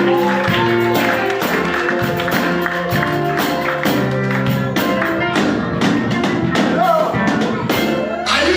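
Upbeat music with a steady percussion beat of sharp, tambourine-like strokes over held chords; a voice briefly joins near the end.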